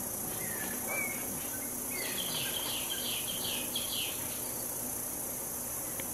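Steady high-pitched insect chorus, with a bird giving a couple of short whistles and then a quick run of about seven repeated chirps for roughly two seconds.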